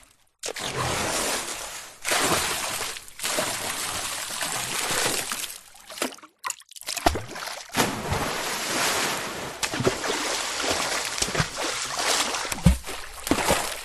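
A string of water splashing and sloshing sounds, one effect after another with short silent breaks between them, some stretches steady and rushing and some with sharper splashes.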